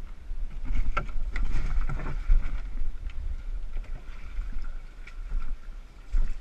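Canoe being hauled out and swung up onto the shoulders for a portage: several knocks and rubs of the hull and gunwales, bunched about a second into the lift, then smaller clicks. A steady low rumble of handling noise runs underneath.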